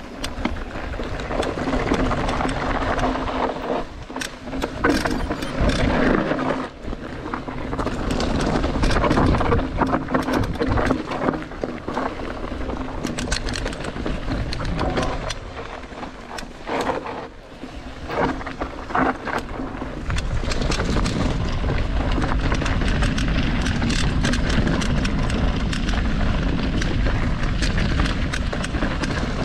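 Mountain bike on a fast race run over rough trail: the bike rattles and clatters over bumps with many sharp knocks, over tyre noise and wind rumble on the microphone. The wind rumble is heavier and steadier in the last third.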